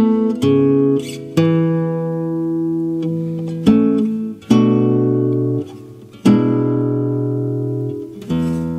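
Classical guitar playing slow plucked chords, each left to ring out and fade before the next is struck.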